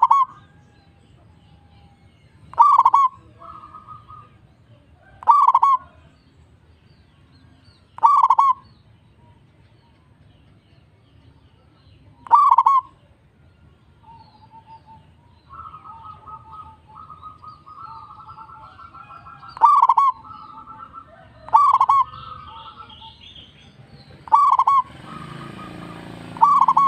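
Zebra dove (perkutut) cooing: loud, short, full 'kung' notes repeat every two to four seconds, with quieter rapid rippling notes between them, thickest in the middle of the stretch. A steady hiss rises under the calls near the end.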